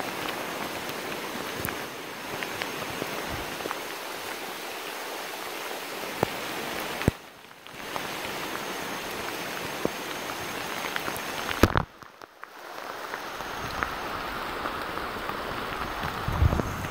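Heavy rain falling on dense forest foliage, a steady hiss with scattered drop ticks, dipping briefly twice.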